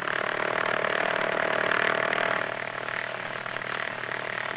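Propeller engine of a small circular-wing airplane running steadily with one droning tone, under the hiss of an old newsreel soundtrack.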